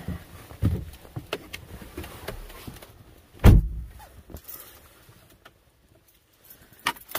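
A car door shutting with one heavy thump about halfway through, amid scattered clicks and rattles of handling the door and keys.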